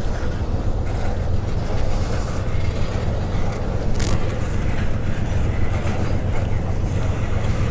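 A passing train: a steady low rumble that holds at an even level throughout.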